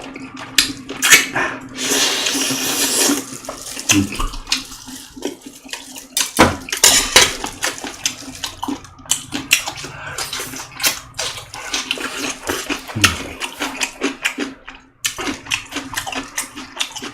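Close-up wet eating sounds of boiled chicken soup: chewing, lip smacks and slurping, with many sharp clicks and a longer noisy slurp about two seconds in.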